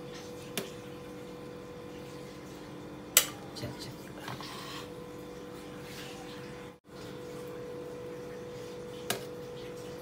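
A metal palette knife clinking a few times against a steel cake plate while whipped cream is spread on the cake's sides; the sharpest click comes about three seconds in. A steady low hum runs underneath.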